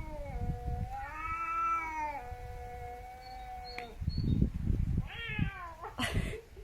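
Cat caterwauling: a long drawn-out yowl that rises and falls, then a second yowl falling in pitch near the end, cut off by a short hiss.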